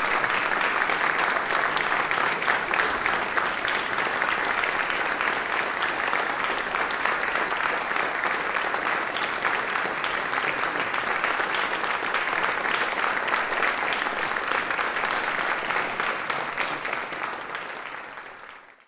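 Audience applause, a dense steady clapping that fades out near the end.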